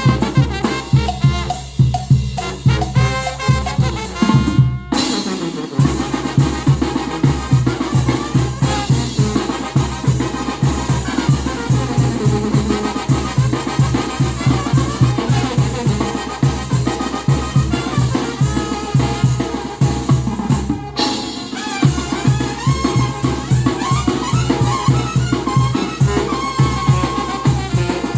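Banda brass band playing a fast son: trumpets and other brass over drums with a steady driving beat, with two short breaks, about five seconds in and again near twenty-one seconds in.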